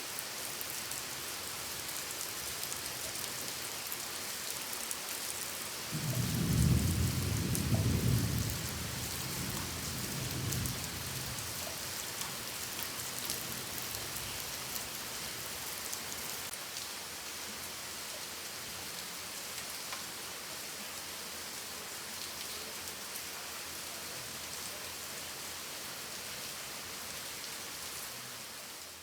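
Steady rain falling, with a roll of thunder about six seconds in that rumbles for a few seconds and fades away.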